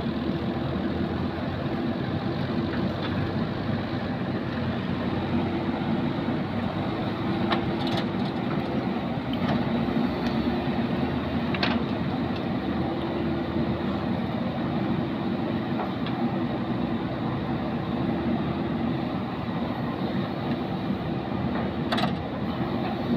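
JCB 3DX backhoe loader's diesel engine running steadily under digging load, with a few sharp knocks as the bucket works the soil and stones and dumps a load into a trolley.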